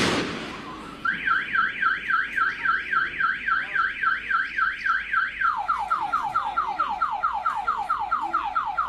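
Car alarm siren starting about a second in: first a warbling up-and-down wail about three times a second, then, about halfway, a fast run of falling sweeps about four a second. It opens on the fading echo of a loud bang.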